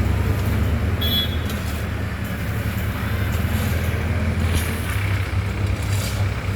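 Heavy diesel engine of road construction machinery running with a steady low drone.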